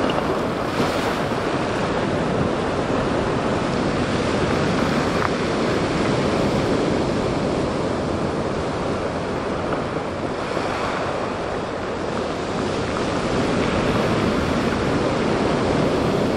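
Ocean surf breaking and washing up a pebble beach, a steady loud rushing noise.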